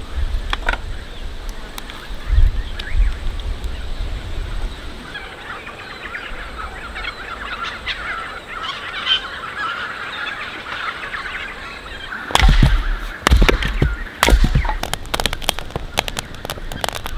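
Birds chattering and calling together for several seconds, then a wood fire crackling with sharp pops near the end, with gusts of wind on the microphone.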